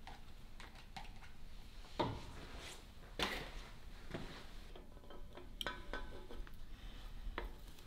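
Metal engine parts and hand tools being handled on a workbench: light clinks and knocks, two sharper knocks about two and three seconds in, and a short metallic ring a little past the middle.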